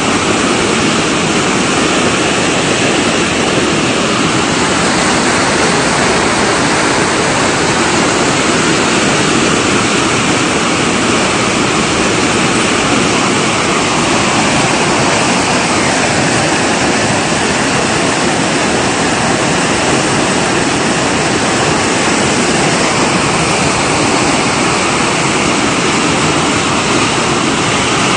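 Steady, loud rush of a muddy flash-flood torrent pouring down a channel.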